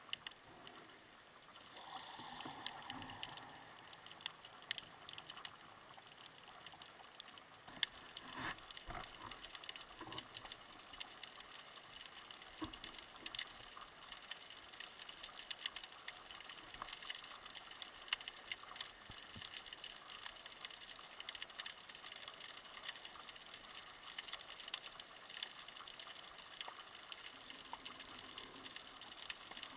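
Underwater ambience heard from a submerged camera: a steady, faint, fine crackle of many small clicks with a wash of moving water.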